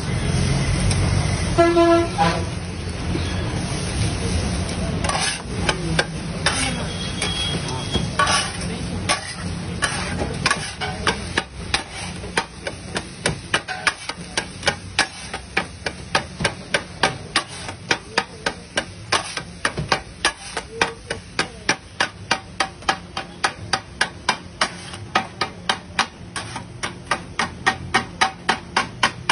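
Kothu parotta being chopped on a flat iron griddle with steel blades: metal clanking on metal, loose at first, then settling after about ten seconds into a fast, even rhythm of several strikes a second. A short horn-like toot sounds about two seconds in.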